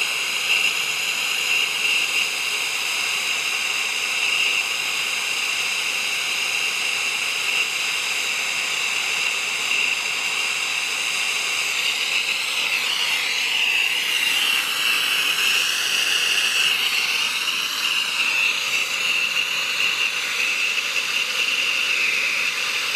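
Brazing torch flame hissing steadily while a joint on an evaporator coil's refrigerant lines is heated and brazed. The hiss wavers and shifts partway through, as the flame is moved on the joint.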